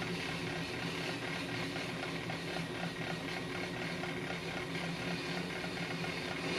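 Ammco brake lathe running, with a brake rotor spinning on its arbor. It gives a steady motor hum with a light, regular ticking.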